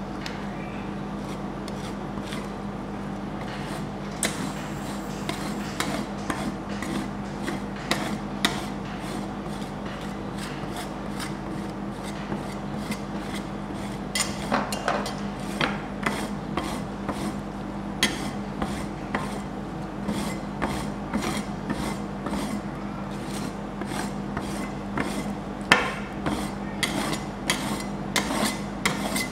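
Flat metal spatulas scraping and tapping on a frozen sheet of ice cream on the steel plate of a rolled-ice-cream cold pan, in scattered strokes at first and busier from about halfway, over a steady low hum.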